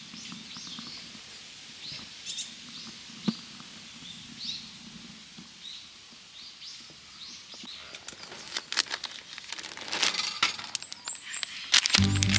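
Small birds chirping, short high calls repeating every second or so. In the last few seconds a dense run of sharp clicks and crackles joins in.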